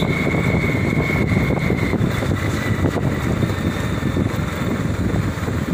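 Steady running of a slow-moving vehicle's engine, with wind rumbling on the microphone as the vehicle keeps pace just ahead of a group of runners.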